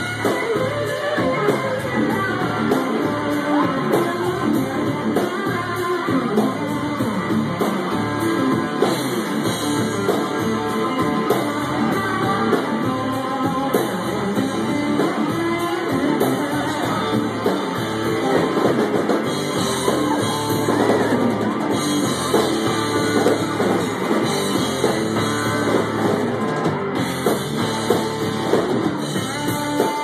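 Live blues-rock trio playing: electric guitar over electric bass and a drum kit.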